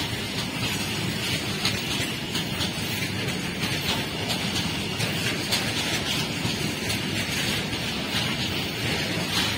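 Freight train of covered goods wagons rolling past close by: a steady rumble and rush of steel wheels on the rails, with light irregular clicks and knocks.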